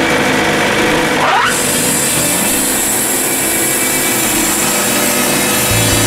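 Wood-Mizer LT70 band sawmill revving up, with a quick rising whine just over a second in. The band blade then cuts into the log with a steady high hiss over the engine.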